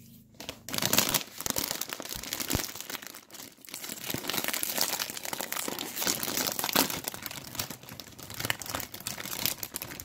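A metallised potato chip bag crinkling and crackling as it is handled and pulled open at its sealed top seam, starting about half a second in.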